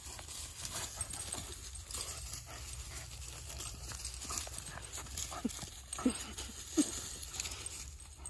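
Two dogs play-wrestling on dry fallen leaves: paws scuffling and crackling through the leaves throughout, with three brief vocal sounds from the dogs a little after halfway.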